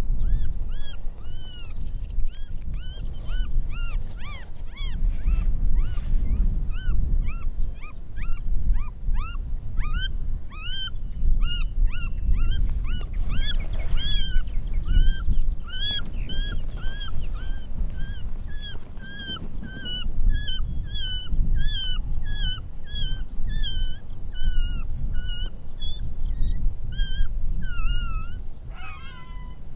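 A predator call sounding a long run of short, arched, high-pitched cries, about two a second, of the kind played to draw coyotes in. A low rumbling noise runs underneath, and the call pattern changes a second or so before the end.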